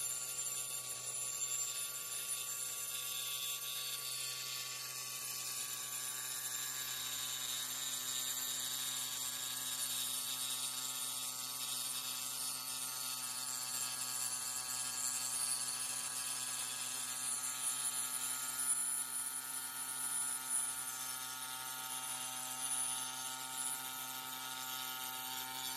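Angle grinder running with a diamond cutting disc, sawing through a stone slab: a steady motor tone with a high grinding hiss that holds even throughout.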